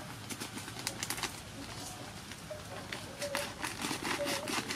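Plastic packet of crispy frying flour crinkling and rustling as it is handled and torn open, in quick crackly bursts. A bird coos in short low calls in the background.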